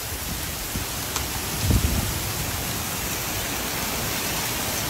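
Heavy rain pouring down in a steady, dense hiss, with a brief low rumble a little under two seconds in.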